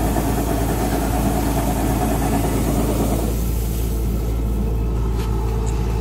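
Kubota combine harvester's engine running steadily while its unloading auger pours paddy rice through a spout into a woven sack. The hiss of pouring grain dies away about three seconds in as the flow stops, leaving the engine hum.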